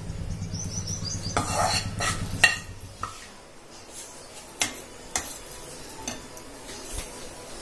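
Slotted steel spatula scraping and knocking against a kadhai while stirring gram flour roasting in oil, with irregular sharp clicks. The strongest knock comes about two and a half seconds in. A low hum runs underneath for the first three seconds.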